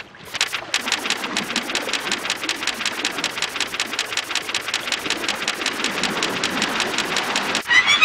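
Rapid, even mechanical clicking or clatter, about ten clicks a second, like a small motor or mechanism running. It cuts off near the end into electronic music with rising synth sweeps.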